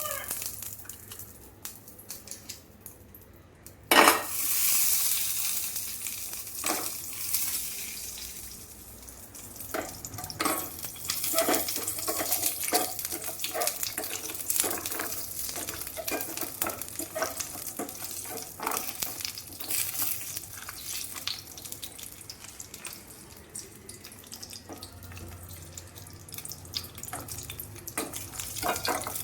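Old candle pieces being put into a bowl of melting wax over a low flame and stirred. A sudden sizzle about four seconds in fades over a few seconds, then comes a long run of light clinks and scrapes.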